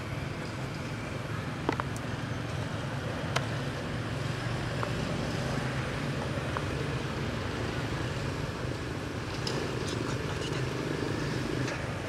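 Steady low rumble and hum of background noise, with two sharp clicks about two and three and a half seconds in.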